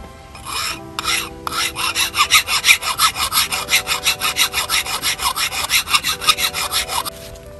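Rapid back-and-forth rasping strokes of a hand tool working on a part, about six strokes a second, starting with two short bursts and then running evenly until near the end.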